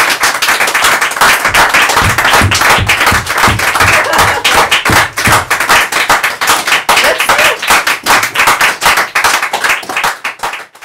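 A small audience applauding, many hands clapping close by in a cramped bus interior; the clapping stops abruptly near the end.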